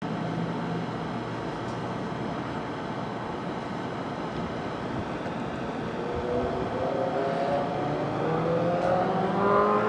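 Steady background rumble of a street at night, then from about six seconds in a pitched whine that keeps slowly rising in pitch.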